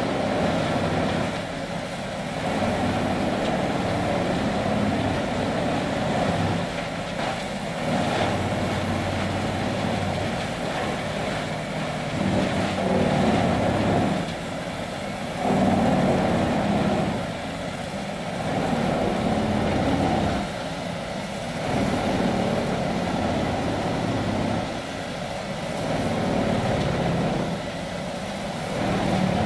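Vermeer 6000TX grinder running under load as it grinds ash logs and mixed hardwoods: a loud, continuous machine din whose level swells and dips every two to three seconds as material feeds through.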